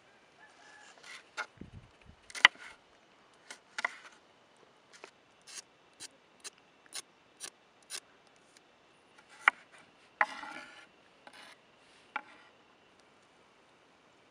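A knife scraping the skin off a raw carrot in short, evenly spaced strokes, about two a second, with a few sharper knocks and a longer rasping scrape in between.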